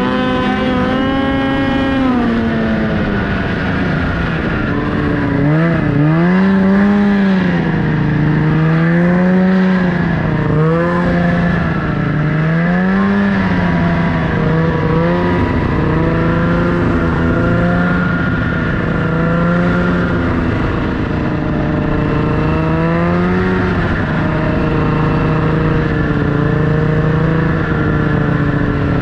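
Snowmobile engine running under load, its pitch repeatedly rising and falling as the throttle is opened and eased off while riding.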